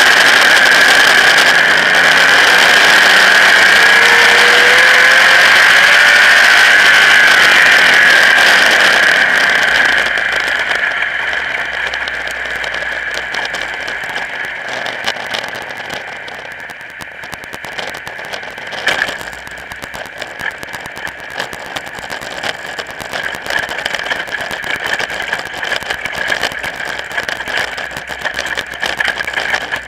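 Modified race car's engine heard from a camera on its hood, running loud and steady, then easing off about 10 s in to a rough, rattling low-speed run or idle as the car slows. A single sharp knock about 19 s in.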